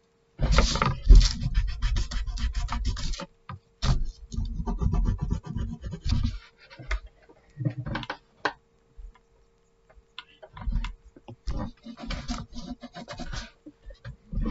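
Pencil scratching on paper in quick sketching strokes, in runs of a few seconds with short pauses, sparser in the middle.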